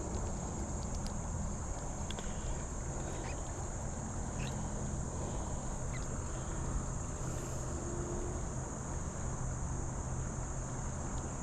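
Outdoor creek ambience: a steady high-pitched insect drone over a low steady rumble, with a few short chirps in the middle.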